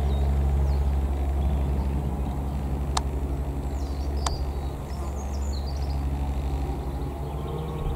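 Single-engine light aircraft's piston engine and propeller droning in flight, a steady low hum that slowly fades. Birds chirp briefly about halfway through.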